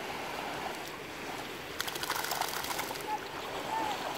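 Water splashing and lapping as two dogs swim, a chow chow and a dachshund, with a spell of sharper splashing crackles about two seconds in.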